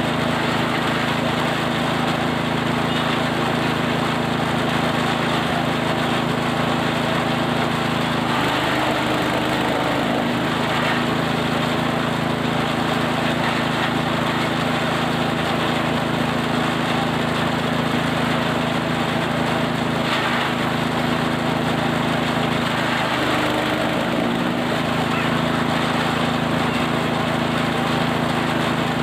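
Small engine-driven forage chopper running steadily while shredding cattle feed. The engine note briefly changes twice, about nine seconds in and again near twenty-four seconds.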